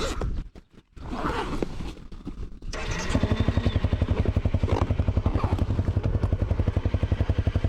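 Motorcycle engine starting about three seconds in and settling into a steady, fast idle, after a few seconds of scraping and handling noises.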